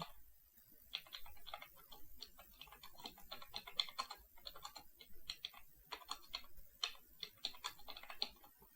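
Typing on a computer keyboard: an irregular run of light key clicks, several a second.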